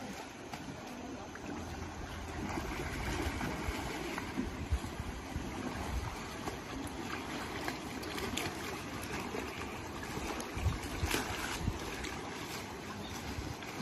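Steady rush of flowing floodwater, with low gusts of wind buffeting the microphone now and then.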